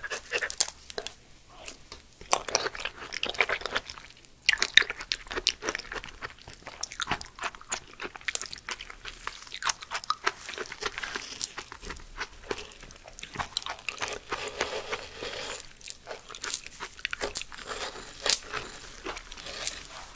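Chewing of slimy raw aloe vera gel, a dense run of small crunches and clicks. A metal spoon scrapes the gel off the leaf at times.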